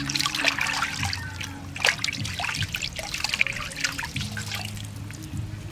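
Water splashing and trickling in a metal basin as hands rub and lift pieces of raw snake meat, water dripping back from them; uneven splashes with a sharper one about two seconds in.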